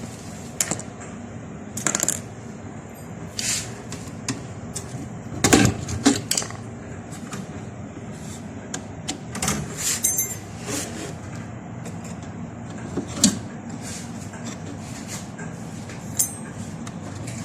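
Irregular sharp metallic clicks and clanks of tools and metal parts being handled while a refrigerator compressor is unfastened and swapped. The loudest knocks come about five to six seconds in.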